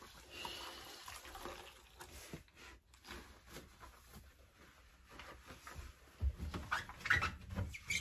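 Gloved hand wiping inside a front-loading washing machine's drum and door seal: faint rubbing and scuffing with a few small squeaks, then louder knocks and handling noise near the end.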